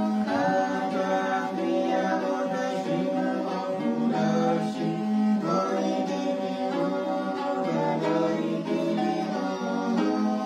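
Svan folk song: voices singing together over a steady drone from a bowed chuniri, with a changi harp plucked alongside.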